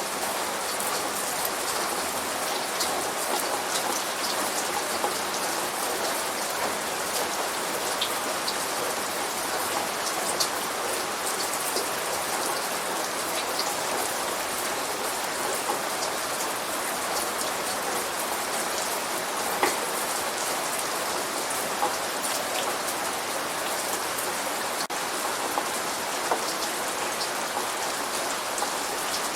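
Steady light rain, a constant hiss with many individual drops landing close by as scattered small ticks.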